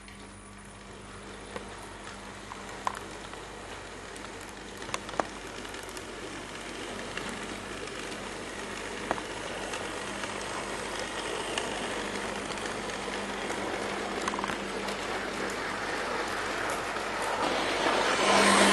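Hornby OO gauge Class 67 model locomotive running on the track with its coaches, a steady motor hum and wheel rumble growing louder as it comes closer, with a few sharp clicks along the way. The owner takes the motor's odd sounds for sparking, a sign it may be due for a service.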